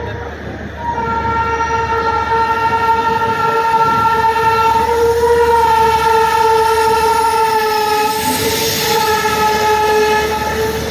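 Train horn sounding one long, steady blast, broken briefly about a second in, over the rumble of the train running on the tracks.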